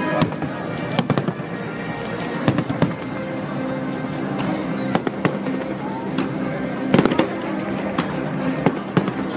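Fireworks going off in a display: sharp bangs at irregular intervals, some close together and some seconds apart, with music playing underneath.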